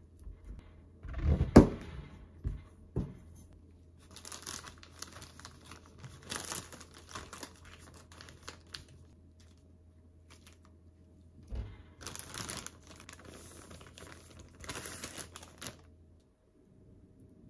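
Kitchen knife cutting through a cluster of white shimeji mushrooms on a wooden cutting board, a few knocks on the board, the loudest about a second and a half in. Then a plastic zip-lock freezer bag crinkling in two long stretches as the mushrooms are packed into it and it is handled.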